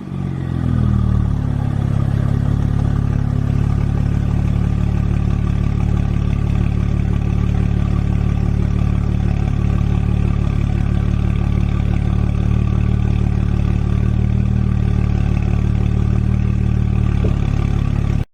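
An engine settling from a rev to a steady idle in the first second, then running evenly.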